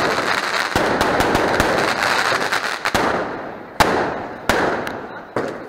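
Fireworks going off: a dense run of rapid crackling pops, broken by several louder bangs that each trail off in an echo.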